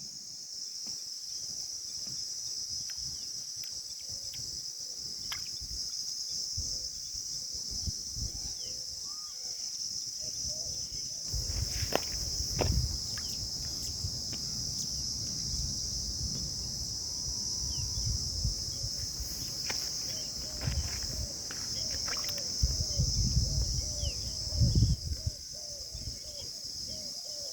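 Steady high-pitched chorus of crickets. A short, soft call repeats about once a second for a few seconds, twice, and rustling, bumps and clicks of handling come and go through the middle and later part.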